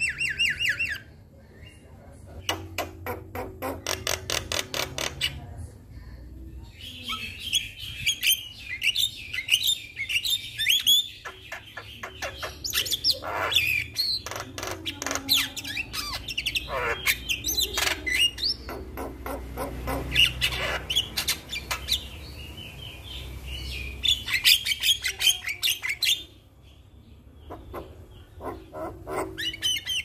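Javan myna (jalak kebo) singing in full voice: bouts of rapid clicking rattles mixed with harsh squawks and high whistled notes, broken by short pauses about a second in, around six seconds in and near the end.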